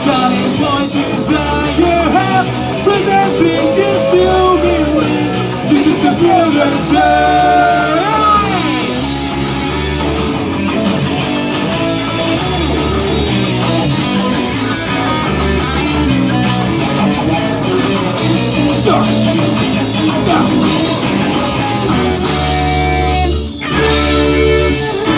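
Rock band music with electric guitar, bass and drums, with a sung melody line over it.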